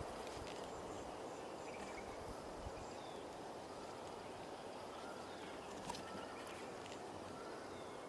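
Faint, steady outdoor background noise with a few faint bird chirps.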